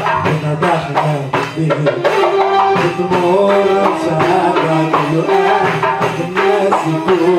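Live Arabic-style music: an electronic keyboard playing a held melody over a steady rhythm of hand-drum strokes.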